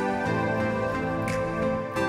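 Background music: a soft, sustained instrumental bed of held chords with light percussive accents.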